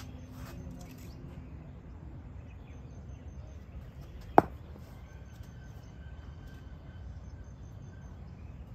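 A single sharp crack of a cricket ball striking a bat about four seconds in, with a brief ringing ping, over a low outdoor background with faint bird chirps.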